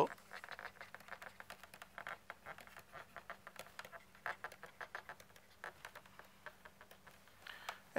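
Stylus tapping and scratching on a tablet screen while handwriting: a run of faint, irregular small clicks.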